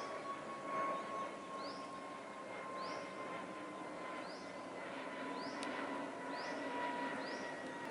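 Jet airliner climbing out overhead: a steady engine drone with a whine that slowly drops in pitch. A bird's short rising chirp repeats about once a second over it.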